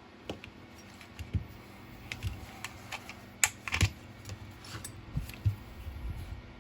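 Irregular light clicks and taps of small plastic parts being handled while an e-bike half-twist throttle is taken apart. Two louder clicks come close together about three and a half seconds in.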